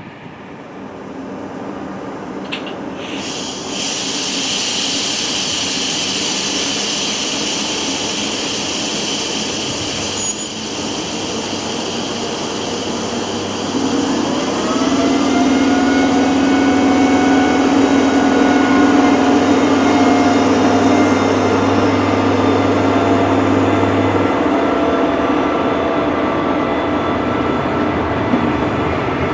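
SNCF electric locomotive hauling Corail coaches passing slowly close by, with a steady hiss and hum. About halfway through, an electric whine of several tones rises briefly in pitch and then holds steady as the locomotive moves off, over the rumble of the coaches on the rails.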